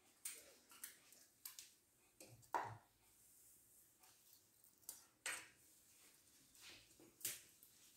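Scattered clicks and knocks as a raw turkey neck goes into a stainless steel dog bowl and a wire fox terrier starts eating from it, the bowl knocking on its stand. The loudest knock comes about two and a half seconds in.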